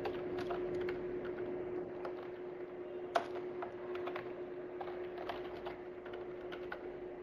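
Computer keyboard keystrokes: scattered, irregular clicks as code is typed, over a steady low hum.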